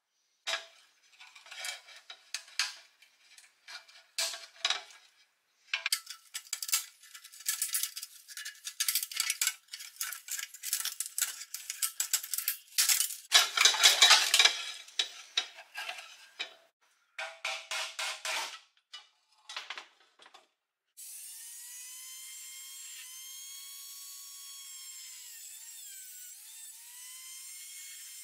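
Rusty pressed-steel toy parts clanking and rattling as they are handled and worked apart, with a dense run of clatter in the middle. About 21 seconds in, a small high-speed rotary tool with a cutoff disc starts up and cuts into the steel, its whine rising and falling under load.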